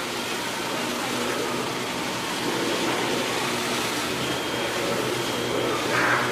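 Steady city street noise: vehicle engines running under an even rush of traffic, with a brief louder sound near the end.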